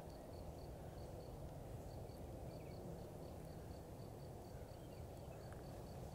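Quiet outdoor background with an insect chirping steadily, short high chirps about three times a second, over a low hum of noise.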